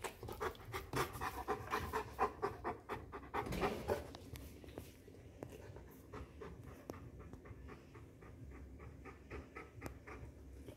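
Bernese Mountain Dog panting fast and rhythmically, close up, louder in the first few seconds and then softer.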